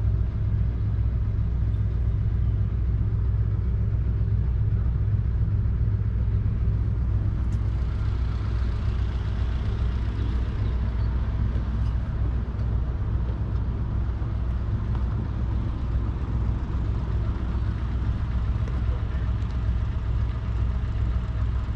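1948 Ferguson TEA20's 1.9-litre four-cylinder petrol engine idling steadily.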